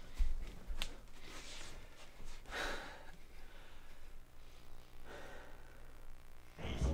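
Quiet breaths and a sigh from a person, airy and without voice, with a small click about a second in.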